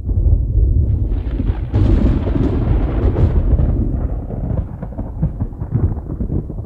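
Rolling thunder: a deep, continuous rumble with crackling that swells sharply a little under two seconds in and keeps rumbling unevenly.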